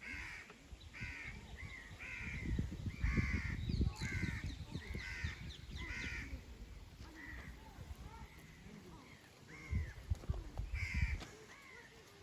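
Crows cawing over and over, a run of harsh calls at about one or two a second, with low rumbling bursts underneath.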